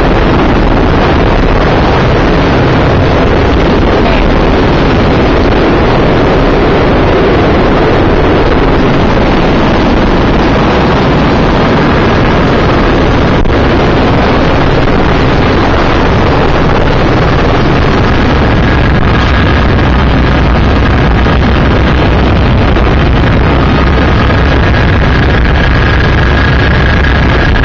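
Helicopter cabin noise in flight: the engine and rotor running steadily, loud and unvarying, with a faint high whine coming and going in the second half.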